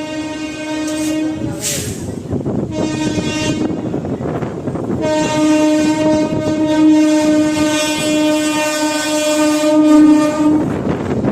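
Train horn sounding three blasts at one steady pitch: one ending about a second and a half in, a short blast about three seconds in, and a long blast from about five seconds in to near the end, over the continuous rumble and clatter of a moving train.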